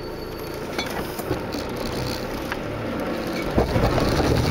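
Off-road 4x4's engine running, with scattered knocks and rattles. The engine gets louder about three and a half seconds in.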